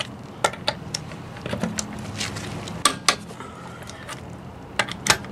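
Half-inch-drive click-type torque wrench clicking on lug nuts set to 100 foot-pounds: sharp metallic clicks in quick pairs, three times, as each nut reaches the set torque.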